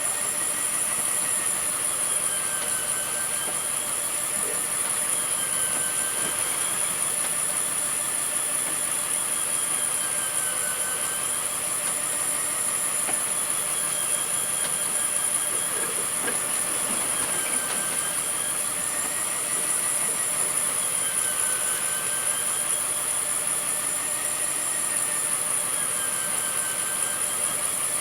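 A fishing boat's engine running steadily, with a high whine that wavers slowly up and down in pitch every few seconds and a steady high whistle above it.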